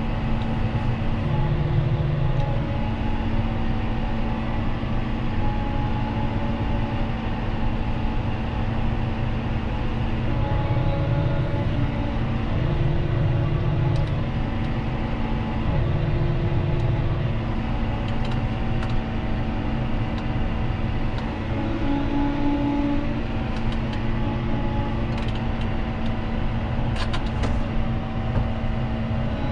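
John Deere 6215R tractor's six-cylinder diesel engine running steadily under load, with the even drone of the machinery it is working.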